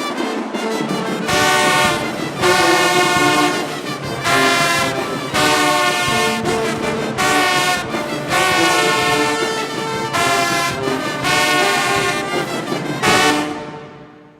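Marching band brass section playing loud, punchy repeated phrases over drums, cutting off sharply about a second before the end and ringing away.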